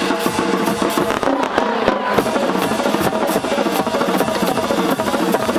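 A marching band's brass and drums playing, with fireworks crackling and popping over it throughout.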